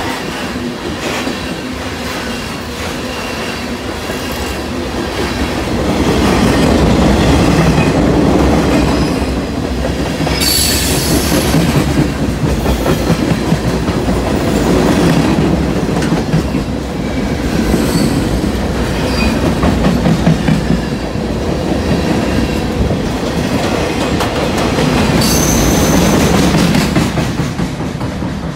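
Freight cars (open hoppers, a tank car and boxcars) rolling past close by: a loud steady rumble of wheels on rail with clickety-clack over the joints. Brief high wheel squeals come about ten seconds in and again near the end, and the sound drops away as the last cars pass.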